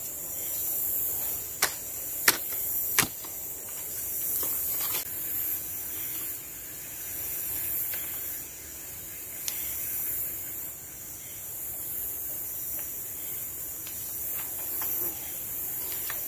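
Steady high-pitched drone of forest insects. Over it come a few sharp clicks and knocks as wooden shelter poles are handled and lashed together, three loud ones in the first few seconds and fainter ones later.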